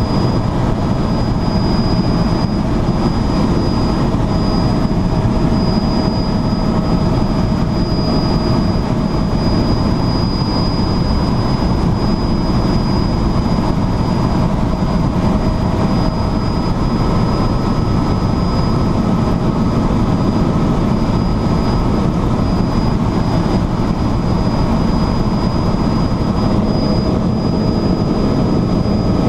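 Tour helicopter in flight heard from inside the cabin: a loud, steady drone of engine and rotor noise with a few faint, steady whining tones above it.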